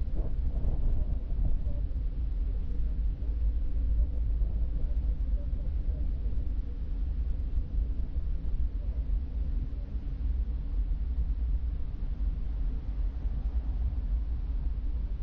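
Steady low rumble of a car driving, road and engine noise with no distinct events.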